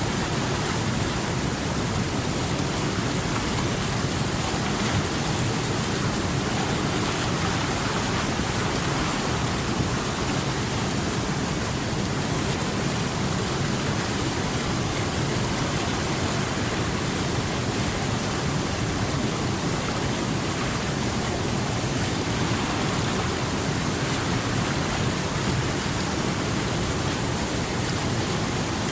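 Steady rushing of running water flowing over rocks, an even, unbroken wash of noise.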